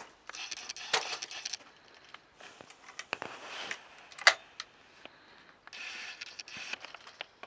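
Rustling handling noise with a few sharp metallic clicks, the loudest a little over four seconds in, typical of a shotgun being broken open, reloaded and snapped shut between clays.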